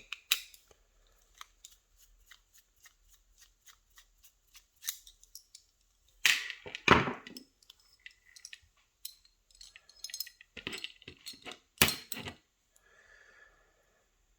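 Small metal parts and tools being handled on a mortise lock cylinder as it is taken apart: a run of light metallic clicks, with louder clattering knocks about halfway through and again near the end.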